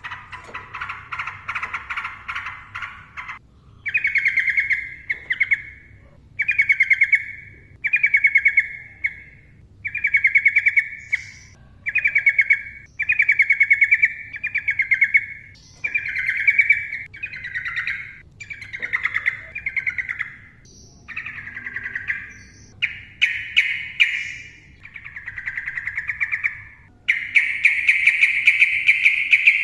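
Sooty-headed bulbul (trucukan) singing in continuous 'ropel' style: rapid rattling, trilled phrases about a second or so long, repeated every two seconds or so. Near the end comes one longer unbroken phrase.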